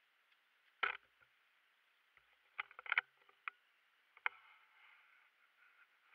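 A few sharp plastic clicks and knocks from a Kilominx puzzle being handled and set down on a Speed Stacks timer mat: one loud knock about a second in, a quick cluster of clicks around three seconds, a single click a little past four seconds, then a faint rustle.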